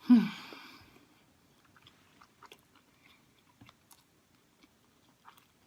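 Close-up eating sounds: soft, scattered chewing clicks and smacks. Right at the start there is a brief, loud pitched sound that falls in pitch and fades within about a second.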